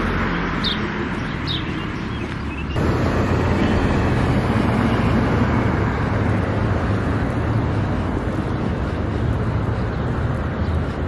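A couple of short, high bird chirps, then, about three seconds in, steady road traffic noise from cars at a wide multi-lane intersection, with a low rumble under it.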